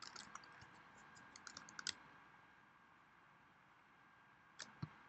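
Faint computer keyboard clicks: a quick run of keystrokes in the first two seconds, then two more key clicks near the end.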